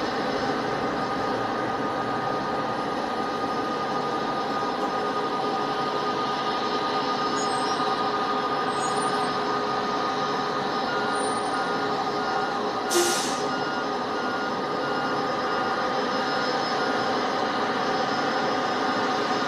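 Steady noise of a COMAC C919 airliner: a continuous rushing hum with several held whining tones, and one short sharp click about thirteen seconds in.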